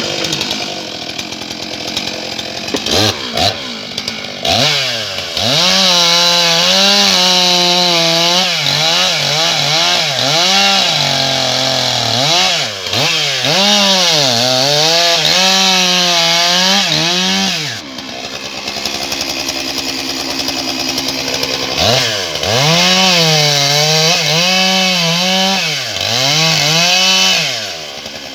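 Stihl MS 661 C-M two-stroke chainsaw revved up and cutting through small logs, its engine pitch sagging and recovering again and again as the chain bites into the wood. It drops back to a lower speed for a few seconds in the middle, then cuts again.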